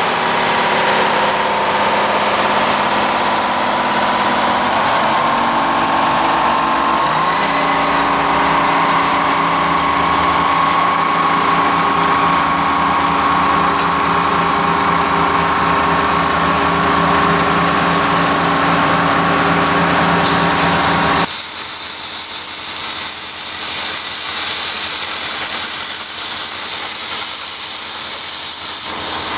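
Diesel engine of a slow-moving work train's locomotive running, rising in pitch about six seconds in as it throttles up. About two-thirds of the way through it gives way to the steady loud hiss of a cutting torch burning bolt holes into the end of a steel rail.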